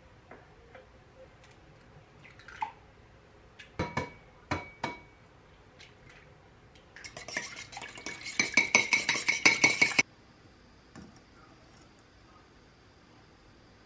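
A few sharp knocks of eggs being cracked on the rim of a ceramic bowl, then metal chopsticks beating the eggs in the bowl: a fast, dense clicking for about three seconds that gets louder and stops abruptly.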